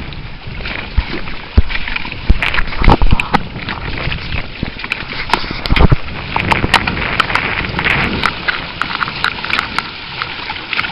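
Wind and water noise on a small sailing boat: a dense rushing hiss full of crackles, broken by a few heavy thumps about one and a half, three and six seconds in.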